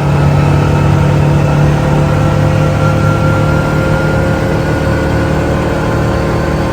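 Engine running steadily at a constant speed, its pitch creeping slightly upward.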